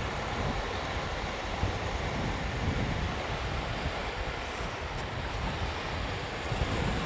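Sea waves washing onto a beach, a steady wash of surf, with wind buffeting the microphone as a low rumble.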